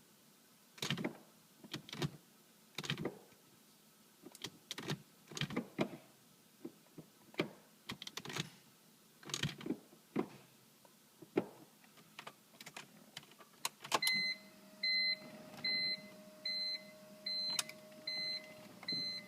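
Clicking from a 2003 BMW M3's SMG gear selector and gearbox, repeated irregularly as gears are selected, with nothing engaging: the SMG is stuck in neutral and the car will not start. About 14 s in, an electronic warning beep starts repeating about every 0.6 s over a faint steady hum.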